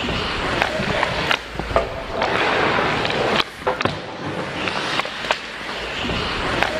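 Ice hockey skate blades scraping and carving on the ice, with a series of sharp clacks from sticks hitting the puck and the ice.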